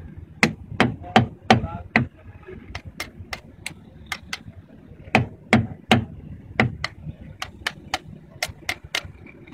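Sharp taps on a piston crown, driving the ringed piston down into a Cummins 6CT diesel engine's cylinder bore. The knocks come in runs of about three a second, with short pauses between the runs.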